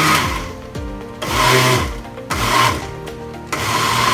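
Electric kitchen mixer motor whirring in on-off bursts as it blends cream, condensed milk and mango. Background music with a steady beat runs under it.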